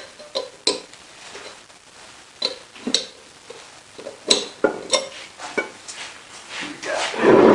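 Metal lathe tailstock parts and hand tools clinking and knocking as they are handled and set down during disassembly, a string of separate sharp clinks, with a louder, longer scraping noise near the end.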